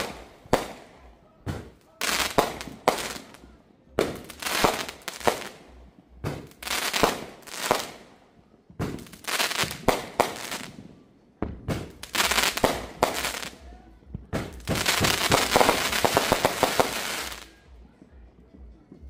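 Aerial fireworks going off overhead, a sharp bang every half second to a second. Near the end comes a long run of rapid crackling bangs, which then stops.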